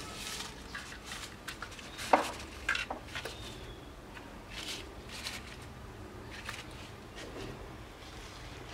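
Fresh leaves rustling and crinkling as they are pressed by hand into the neck of a metal pot, in short scattered strokes, with a sharp tap about two seconds in.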